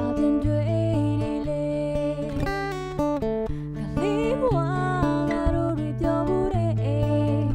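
Playback of a song recording: guitar with a singing voice, both tracks running through compressors.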